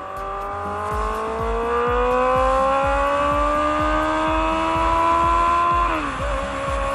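Honda CB650R inline-four engine accelerating, its revs rising smoothly for about six seconds, then dropping abruptly near the end and settling at a lower, steady pitch.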